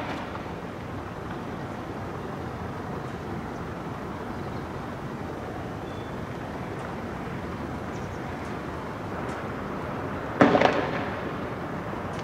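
A single loud bang about ten seconds in, with a short echoing tail: a tear gas canister being fired. Steady low street background noise runs under it.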